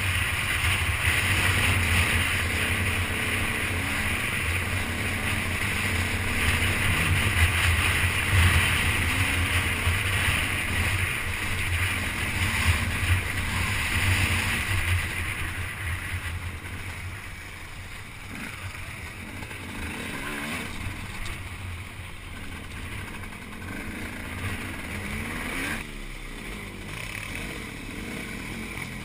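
Dirt bike engine running steadily under way, heard from on the bike with noisy rushing air, louder through the first half and easing to a quieter run from about halfway.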